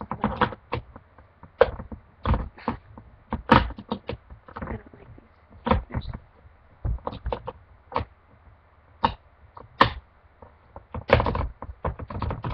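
Manual can opener being clamped onto a tin can's rim and its turning wheel worked, giving irregular clicks and clunks of metal on metal at uneven intervals. The opener is blunt and struggles to bite and turn.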